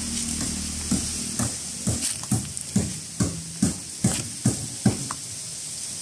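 Footsteps crunching on gravelly dirt, about two steps a second, over a steady high hiss.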